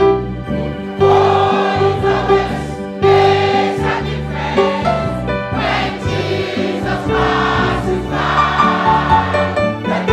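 Church choir singing a gospel song with instrumental accompaniment, in sustained phrases that swell and fade every second or two.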